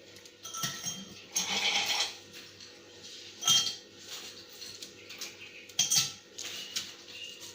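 Ice cubes being put into a glass, clinking against the glass and each other: a brief rattle about one and a half seconds in, then single clinks every couple of seconds.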